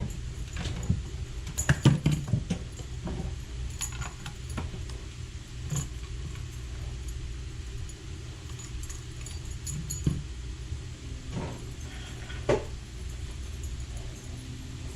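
Scattered short clinks and knocks over a steady low hum, with a quick cluster about two seconds in and a sharper knock near the end.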